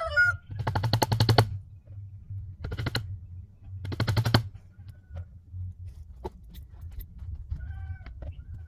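Three short bursts of rapid, even clicking, each under a second, from work on the pen. A brief chicken call right at the start and faint clucks near the end.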